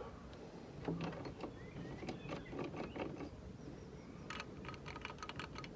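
Socket ratchet working engine mount bolts loose: irregular metal clicks and knocks, then a quick run of ratchet clicks in the last second and a half.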